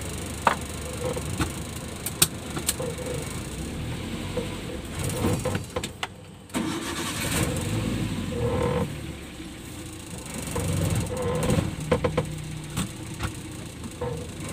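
Car engine running and cabin noise heard from inside a small vehicle driving slowly, with a few sharp clicks in the first few seconds and a brief sudden drop in sound near the middle.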